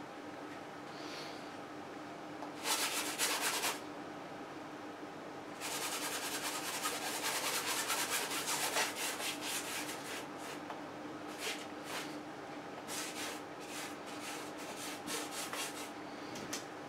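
A wide bristle brush scrubbing paint across a stretched canvas in quick back-and-forth strokes. It comes in bursts: a short one about three seconds in, a longer run of strokes from about six to ten seconds, then scattered strokes near the end. A faint steady hum sits underneath.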